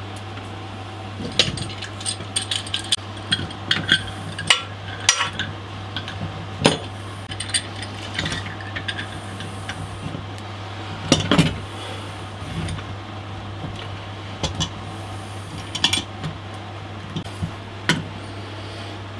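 Scattered clinks and knocks as a metal G-clamp is fitted and tightened onto ash workpieces and a metal square is set against the wood, over a steady low hum.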